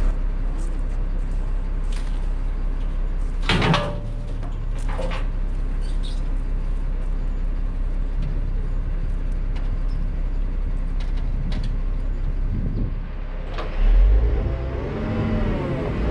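Grapple crane truck's engine running steadily, with two sharp clanks about four and five seconds in. Near the end the engine revs up and its pitch swings up and down as the hydraulic knuckle-boom crane moves the grapple.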